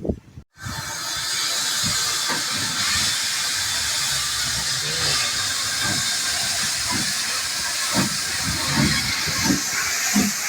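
Steam hissing steadily from a Jinty 0-6-0 tank steam locomotive, starting just after a brief gap. A few short low pulses come through near the end.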